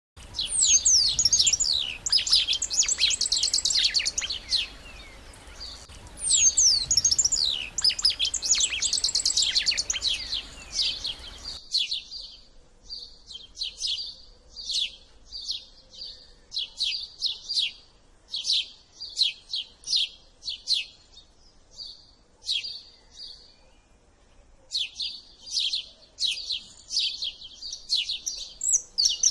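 Songbirds singing: two long, busy song phrases full of rapid trills and sweeping notes. About twelve seconds in, the recording changes to a run of short chirps repeated roughly twice a second.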